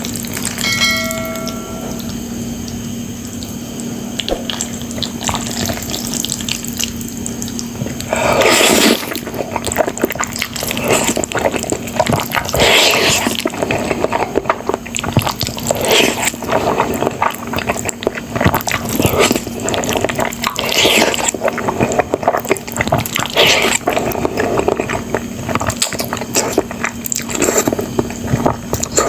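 Close-up mouth sounds of eating spicy sauced instant noodles: irregular wet slurps, smacks and chewing clicks, which start in earnest about eight seconds in. A brief chime-like tone sounds about a second in, over a steady low hum.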